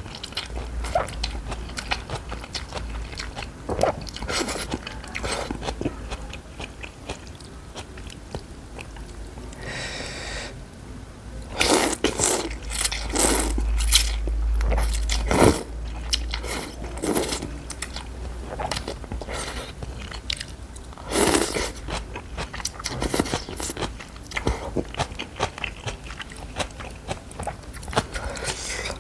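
Close-miked slurping and chewing of rice noodles in broth, with wet mouth clicks and smacks throughout. The loudest slurping comes about halfway through, with another short burst about three-quarters of the way in.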